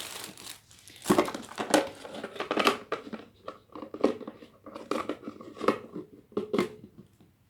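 Packaging or wrapping being crinkled and rustled by hand, in a run of irregular crackles.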